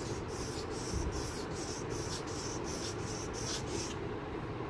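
Steel reed-knife blade stroked back and forth on a 600-grit water stone, a quick even scraping about three strokes a second that stops about four seconds in. The strokes are rounding over the blade's curved tip and raising a burr along it.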